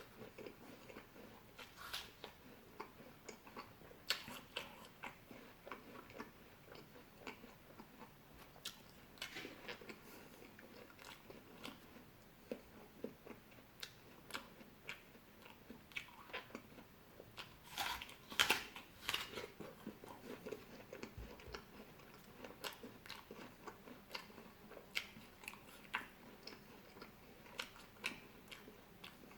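A person chewing fresh fruit close to the microphone: irregular wet crunches and bites, with a louder run of crunches a little past the middle.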